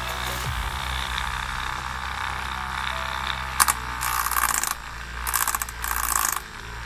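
Homemade mini circular saw, a small motor spinning a grinder cutting disc, running with a steady whine. From about four seconds in, the disc cuts into a plaster block in three short, gritty bursts.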